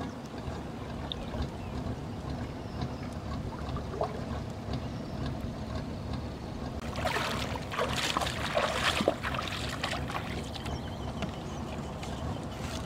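Shallow river water splashing and sloshing around a wading person and plastic bottle traps, loudest in a stretch about halfway through and again near the end, over a steady low rumble of wind on the microphone.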